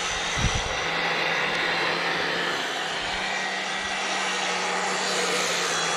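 EGO 22-inch bristle brush attachment on an EGO POWER+ battery power head, its electric motor running steadily as the spinning bristles sweep the grass. A steady low hum and a faint high whine sit under a broad whooshing hiss.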